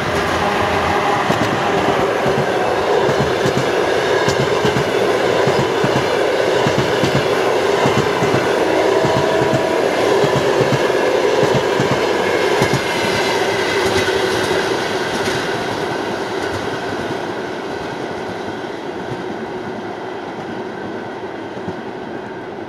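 Express passenger train hauled by a ChS4T electric locomotive rolling past, its coach wheels clattering rhythmically over the rail joints under a steady rumble. The sound fades over the last several seconds as the train draws away.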